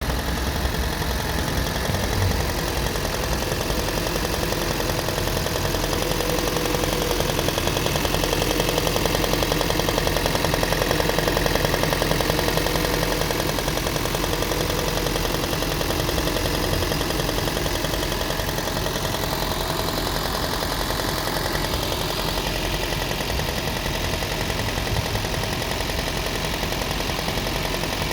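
Second-generation Toyota Prius (NHW20) 1.5-litre four-cylinder petrol engine running steadily with a rapid, even knock, the engine knock whose cause the owner is asking about.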